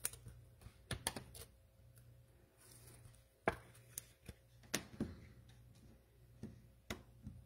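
Light irregular clicks and taps of trading cards being handled and set down on a table, over a faint low hum.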